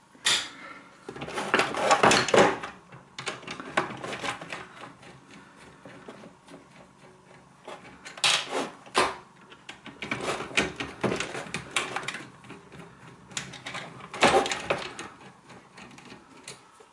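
Hands and a screwdriver working on a stripped-down Triton Enrich electric shower: the plastic backplate and heater can knocking, clicking and rattling in uneven bursts, loudest about two seconds in, around eight seconds in and about fourteen seconds in.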